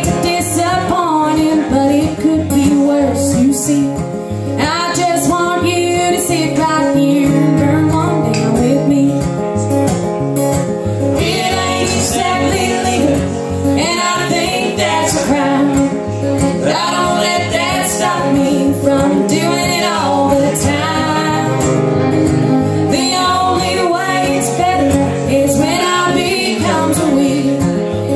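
Live acoustic country music: a fiddle plays a sliding melodic break over strummed acoustic guitar.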